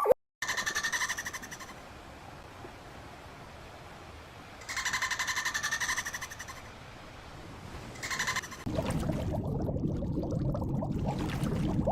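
An animal's rapid pulsing trill, given three times with pauses, the last one short. Near the end a steady rushing noise sets in and stays louder than the trills.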